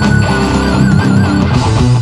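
Electric guitar played through the MSG Twin Unicorn dual-channel distortion pedal. A held, distorted lead note with wide vibrato gives way to lower, choppier notes near the end.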